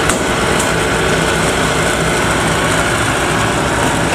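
Kubota DC93 rice combine harvester's diesel engine running steadily while the machine creeps forward on its rubber crawler tracks through mud.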